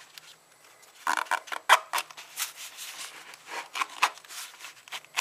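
Fabric wallet rustling and scraping as a PSP handheld console is pushed into its pocket: irregular handling noises, with a sharp click near the end.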